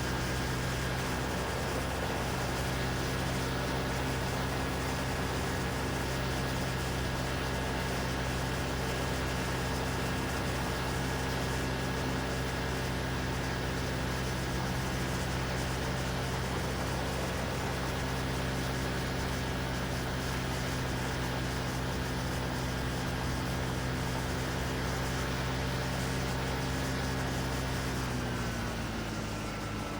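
Quicksilver MXL II ultralight's engine and propeller running steadily in flight over a steady hiss of air. Near the end the engine note drops in pitch and gets a little quieter as power is reduced.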